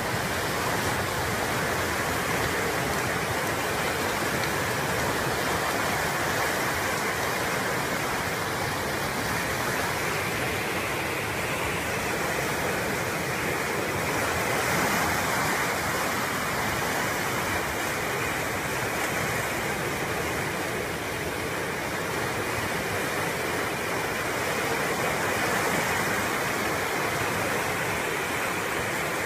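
Muddy flash flood torrent rushing steadily across flooded ground: a continuous, unbroken rush of fast-moving water.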